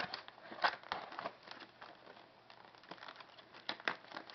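Clear plastic packaging crinkling and crackling as it is handled and pulled apart. There are irregular sharp crackles, the loudest about two-thirds of a second in and again near the end.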